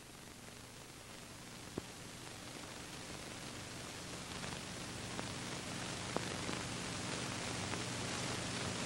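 Steady hiss with a faint low hum, slowly growing louder, broken by a few faint clicks; no distinct sound of the plate work stands out.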